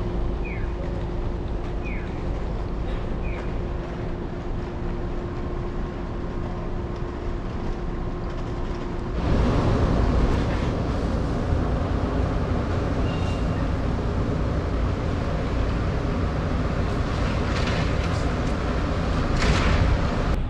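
City street ambience: a steady rush of traffic noise with a faint steady hum, and a few short high chirps in the first few seconds. About nine seconds in it steps up to a louder, fuller rush.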